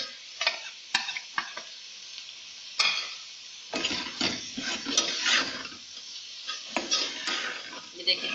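Metal slotted spoon stirring and scraping minced meat around a metal pot, clinking against the pot, over a steady sizzle of frying. A few sharp clinks come in the first three seconds, then busier stirring and scraping from about four seconds in, as freshly added dry spices are mixed into the frying mince.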